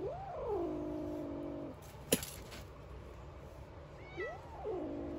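A cat meowing twice, at the start and again about four seconds in. Each call rises, drops and then holds a steady drawn-out note for about a second. A single sharp click falls between the two calls.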